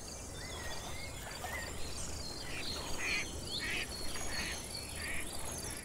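Wild nature ambience: birds calling with whistled glides and chirps, and a run of about five raspy calls a little over half a second apart in the middle, over a steady background hiss.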